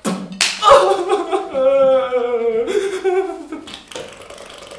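A high-pitched, laughing vocalisation from a performer, its pitch wavering and sliding down over about three seconds. A single sharp knock sounds near its start, about a second in.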